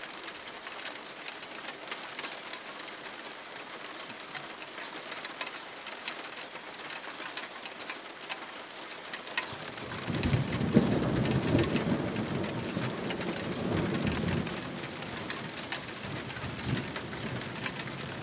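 Thunderstorm: steady rain falling, with drops tapping sharply on nearby surfaces. About halfway through, a long low thunder rumble swells up and dies away over about five seconds.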